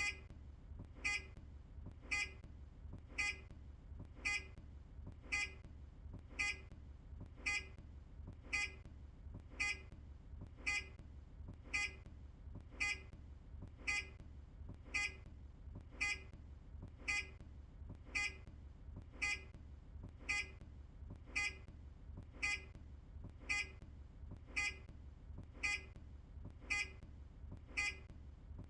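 Optare Solo bus indicator ticker beeping: short, evenly spaced electronic beeps at about one a second as the turn signal flashes. A steady low hum runs underneath.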